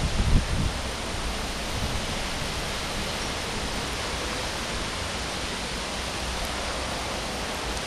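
Steady, even hiss of outdoor background noise with no distinct events, with a few low rumbles in the first half-second.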